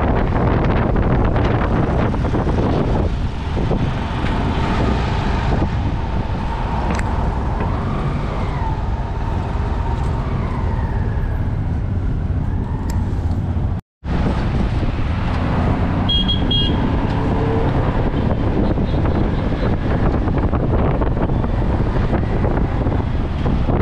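Wind rushing over the microphone and road noise from a moving auto-rickshaw, a steady heavy rumble and hiss. It cuts out for an instant a little past halfway.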